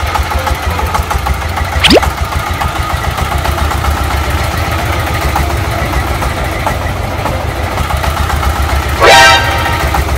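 An engine running steadily with a fast low pulsing rumble. A quick rising sweep comes about two seconds in, and a louder rising tone near the end.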